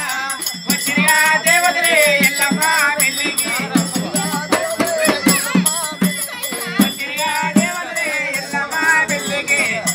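A folk devotional song: a voice singing over a large steel-shelled drum beaten about twice a second, with a steady metallic jingling rattle.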